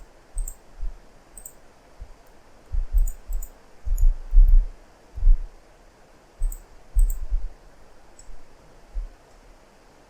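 Computer keyboard and mouse clicks, scattered and irregular, each with a dull low thump.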